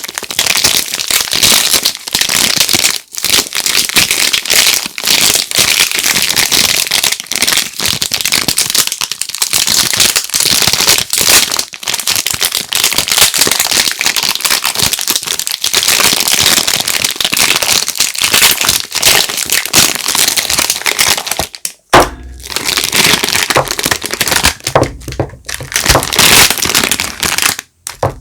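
Soap packaging crinkling and crackling continuously as the bars are unwrapped by hand. About 22 seconds in it stops briefly, then comes a sharp knock and more rustling handling noise with low thuds.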